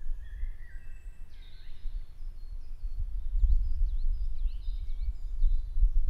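Birds calling and chirping in short, high notes and quick dipping calls over a strong, uneven low rumble that grows louder about halfway through.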